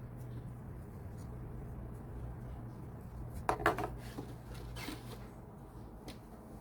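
Hands handling a lightstick and its packaging: a short clatter of small clicks and rustling about halfway through, and a fainter one a second later, over a low steady hum.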